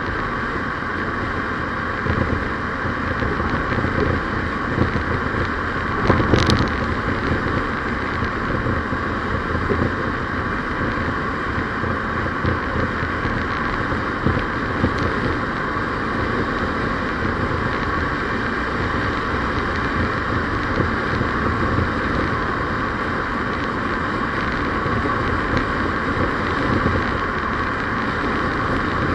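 Steady drone of a road vehicle driving along, tyre and engine noise, with a brief sharp click about six seconds in.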